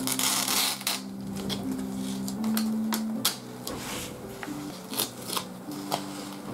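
The paper lid of a Nissin Deka Uma cup ramen being peeled back and handled: a short tearing rustle at the start, then scattered crisp crackles and clicks as the lid is bent and pulled.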